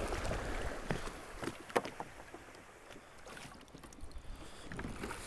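Fishing kayak being launched through shallow water at the shore: water sloshing and splashing around the hull and the paddler's feet, with a few sharp knocks of gear on the hull between one and two seconds in. Wind rumbles on the microphone.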